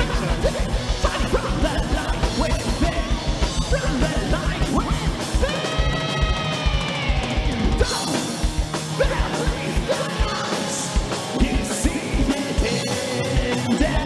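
Heavy metal played live by a band: distorted guitar over fast, even bass-drum beats. About halfway through, a singer holds one long note that falls away at its end, and the drumming then turns sparser.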